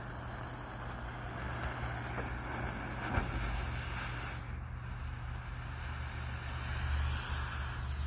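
Burning fuse of a cheap smoke ball hissing and spitting sparks, then the smoke ball hissing as it starts to pour out yellow smoke. The hiss dips about four seconds in, then builds again.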